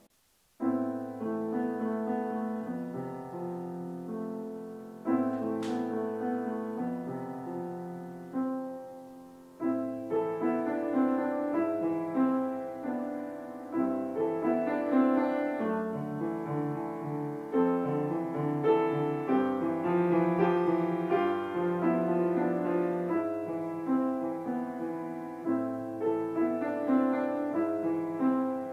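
Piano music: a piece starts after half a second of near silence, with chords that ring and fade and are struck afresh in phrases.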